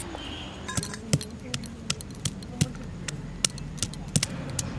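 Stone muller knocking on garlic cloves on a flat stone grinding slab as the cloves are crushed: a run of sharp, irregular knocks, about two or three a second.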